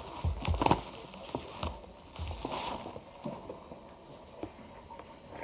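Irregular rustling and light knocks of an item and its packaging being handled.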